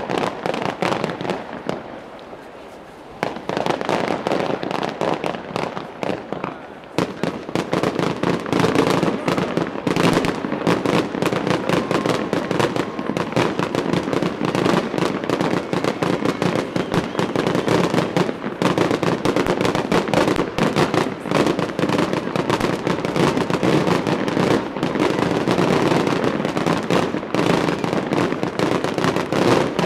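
Fireworks display: a dense, nearly continuous barrage of bangs and crackles from aerial shells. It thins briefly about two seconds in and grows denser from about seven seconds on.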